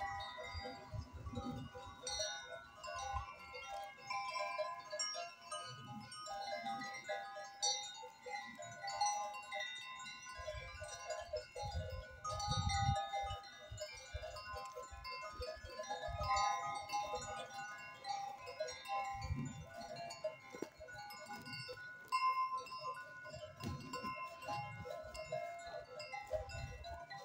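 Bells on a grazing herd of goats and sheep, clinking and tinkling at irregular times, with occasional low rumbles.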